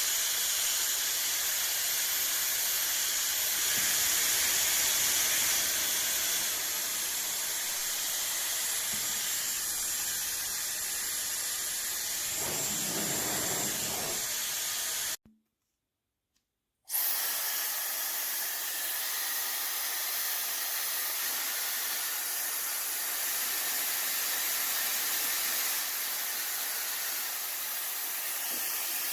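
YAPOY high-speed ionic hair dryer running with a steady, airy hiss. It switches off about fifteen seconds in and starts again under two seconds later.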